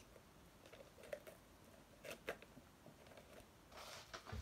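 Paper packaging being handled: a few faint taps and clicks, then soft paper rustling near the end.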